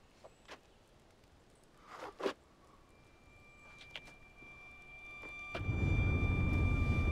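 Quiet with a few soft knocks, then a steady high tone comes in. About two-thirds of the way through, the low rumble of a car's cabin (engine and road noise) starts abruptly and stays loud.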